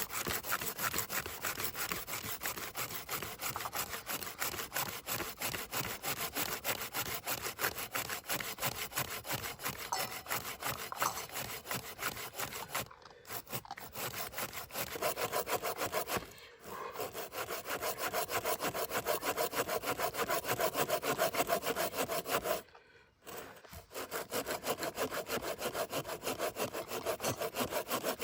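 Hand saw cutting wood in quick back-and-forth strokes, stopping briefly three times.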